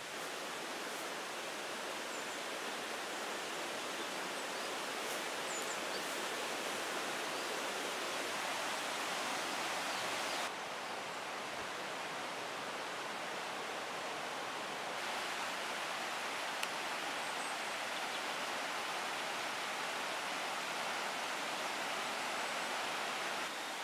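Steady rushing outdoor noise, with a few faint high chirps a few seconds in. Its level shifts abruptly about ten seconds in, again at fifteen, and just before the end.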